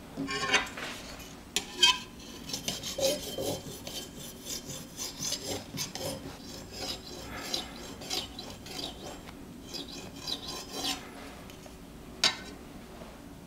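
Serrated bread knife sawing back and forth through a chocolate sponge cake, its blade running along metal leveling bars: a long run of dry rasping strokes, with a couple of sharp knocks near the start and one near the end.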